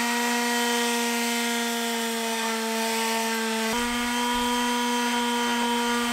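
Handheld electric sander running steadily against the fiberglass-and-resin coating of a wooden canoe paddle blade, a constant motor whine. The whine shifts slightly in pitch a little past halfway.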